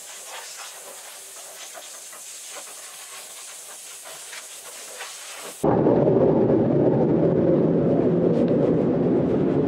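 Faint steady hiss of air spray-painting equipment in a spray booth, with a few light ticks. About five and a half seconds in it changes suddenly to a loud, steady low rumble.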